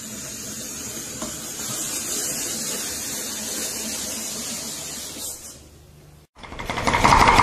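Hand-cranked apple peeler-corer-slicer turning a green apple, its blade shaving off the peel in a steady hiss that fades out near six seconds. After a brief silence, a fast, loud run of knife chops on a wooden board starts near the end.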